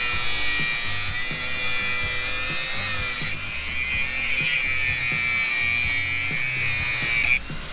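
Angle grinder cutting through the outer shaft of a rust-seized steering box, a steady high whine that stops near the end. Background music with a steady beat underneath.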